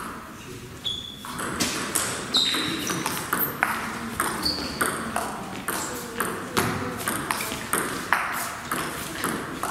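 Table tennis rally: the ball clicks off the bats and bounces on the table in quick, irregular succession, starting about a second in, with a few short high squeaks in between.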